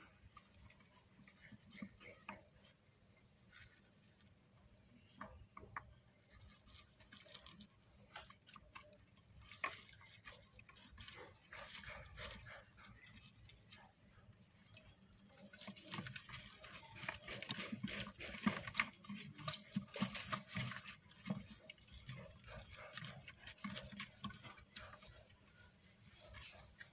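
Syrian hamsters scrabbling about in a plastic bowl: faint scattered claw clicks on the plastic and rustling wood shavings, growing busier and louder a little past the middle.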